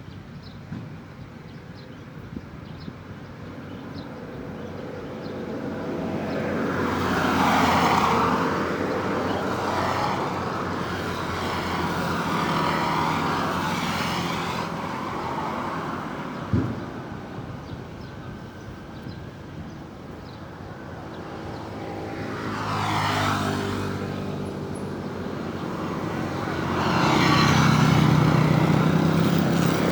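Road traffic: vehicles drive past one after another, their engine and tyre noise swelling and fading about three times. Near the end a heavier engine is heard. A single short knock comes a little past halfway.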